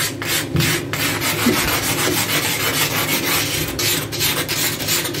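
A pumice scouring stone scraping back and forth over a bathtub's surface in quick, rasping strokes, scrubbing off a dark water stain.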